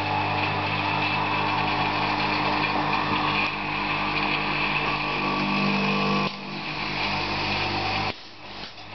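Pneumatic carbide circular saw blade grinding machine running, with a steady motor hum and grinding noise. The sound drops about six seconds in and cuts out briefly near the end.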